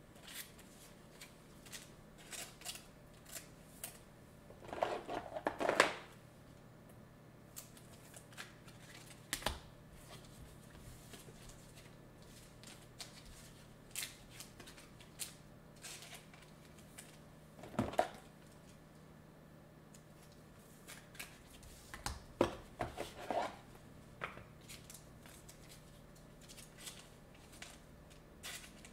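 Trading cards and foil pack wrappers being handled: scattered faint clicks and snips, with louder bursts of crinkling about five to six seconds in, at eighteen seconds and around twenty-two to twenty-four seconds. A low steady hum runs underneath.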